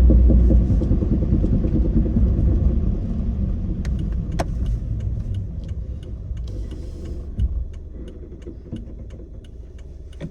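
Suzuki Swift Sport ZC31S driving, its low road and engine rumble fading steadily as the car slows. From about halfway through there is a regular light ticking, two to three ticks a second.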